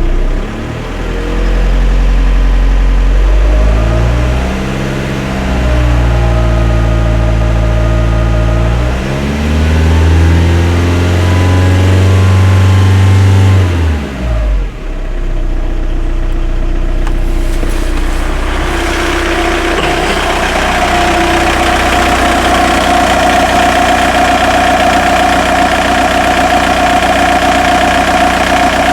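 Skoda Octavia 1.9 TDI ALH diesel engine, warm at about 50 °C, revved up and held several times, then dropping back to idle about halfway through. At idle a steady whine sits over the engine note: the strange noise the owner is trying to trace, still there after new alternator bearings and belt pulley.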